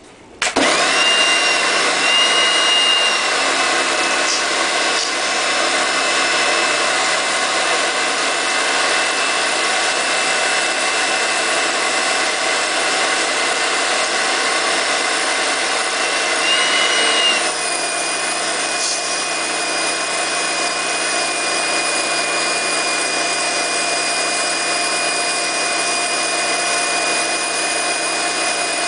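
Electric pressure washer starting up about half a second in and running steadily, its motor whine over the hiss of the water jet spraying concrete paving slabs. A little past halfway the whine drops in pitch and the level dips slightly.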